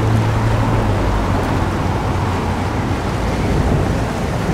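Storm-at-sea sound effects: a steady rush of wind and waves, with a low hum that fades over the first second and a half.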